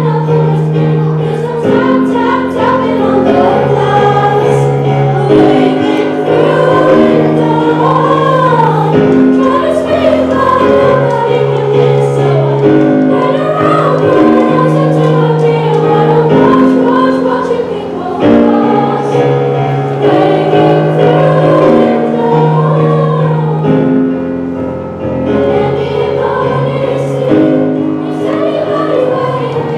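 Choir of young voices singing over an instrumental accompaniment of sustained chords that change every couple of seconds.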